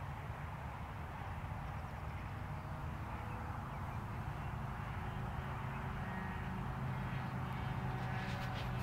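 A brand-new OS 55 AX glow engine, still being broken in, drones steadily as it powers a radio-controlled aerobatic airplane in flight. A steady hiss runs underneath, and a few sharp clicks come near the end.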